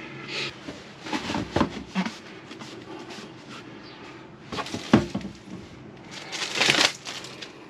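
Paper towel rustling and scrubbing inside a plastic water-filter housing, with clicks and knocks as the housing and the old filter cartridge are handled and set down on a countertop. The sharpest knock comes about five seconds in, and a longer rustle of wiping comes near the end.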